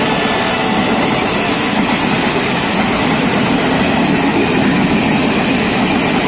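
Passenger train coaches running past close by at speed: a steady, loud rush of wheels on rails, with faint clicks now and then.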